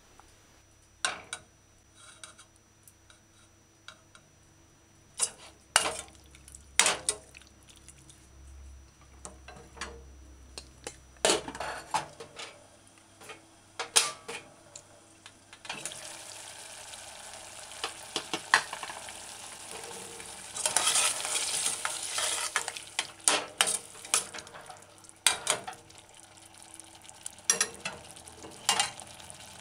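A metal spoon clicking and scraping against a stainless-steel saucepan. About halfway through, the oily saltfish and mushroom stew starts sizzling in the pan as it is stirred, with more knocks and scrapes over the sizzle.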